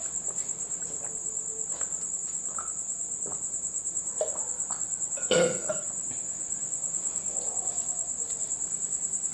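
Crickets chirping: a steady, high, rapidly pulsing trill, with one short louder noise a little past halfway.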